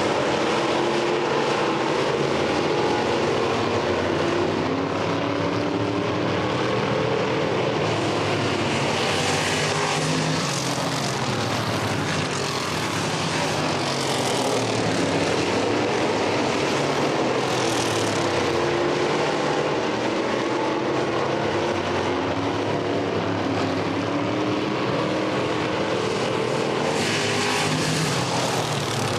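Several dirt-track race cars lapping together, their engines rising and falling in pitch as they go through the turns. The sound swells several times as cars pass close by.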